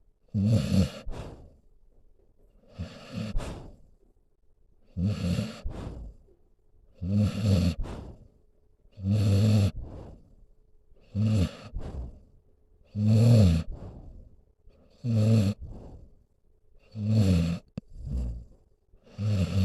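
Senior dog snoring in sleep: a low snore on each breath, about one every two seconds, each lasting about a second.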